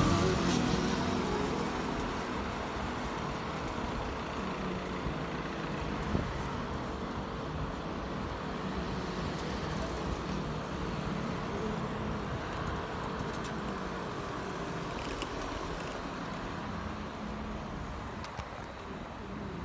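Steady traffic and road noise heard while moving along a city street, with a brief click about six seconds in.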